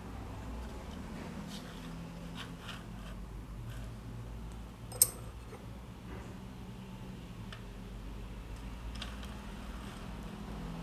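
Light clicks and taps of smooth steel guide rods being handled and slid through a 3D-printed plastic carriage block, with one sharp click about five seconds in. A low steady hum runs underneath.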